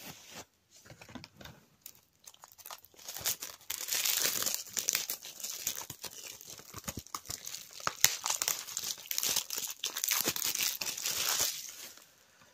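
Plastic wrapping being torn open and crumpled off a DVD case, at first in light rustles, then as steady dense crackling with sharp clicks that stops near the end.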